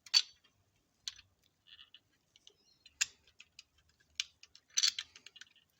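Small plastic and diecast model parts clicking and tapping against each other as a kit part is handled and fitted into the model car's body by hand: sparse sharp clicks, the loudest just after the start, another about three seconds in and a quick cluster near the end.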